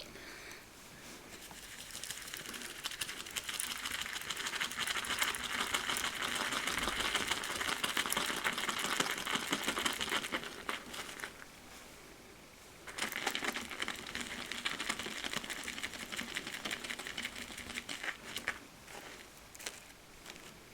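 Shaving brush swirled briskly in a mug, working glycerin shaving soap into lather: a fast, wet crackling patter in two long bouts with a short pause about eleven seconds in.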